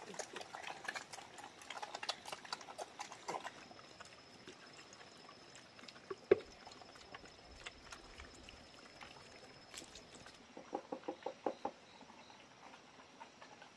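Small black pigs feeding at a bamboo trough: a dense run of chomping clicks for the first few seconds, then sparser ones, with a single sharp knock about six seconds in. A thin, steady high tone sits through the middle, and a quick run of clicks comes near the end.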